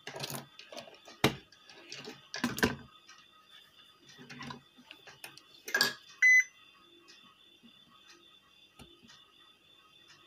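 Several knocks and taps from a circuit board and tools being handled on a workbench. About six seconds in, a digital multimeter gives one short, high beep, the loudest sound, as its probes are put to the inverter board to check the MOSFETs for shorts.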